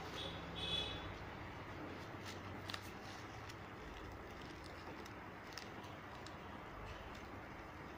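Faint steady background hiss with a few soft clicks, and a short high-pitched chirping sound in the first second.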